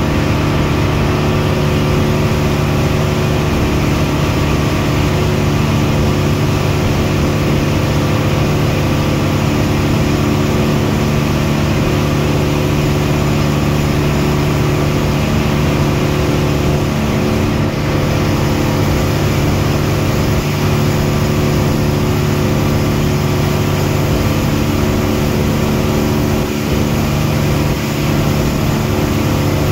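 A boat's engine running steadily at cruising speed: a constant drone with a hiss of rushing noise over it.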